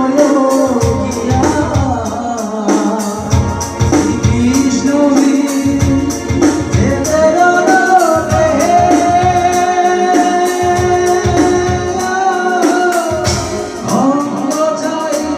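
A singer performing a Bengali folk song over an electronic keyboard and a percussion beat, the voice holding long, wavering notes in the middle.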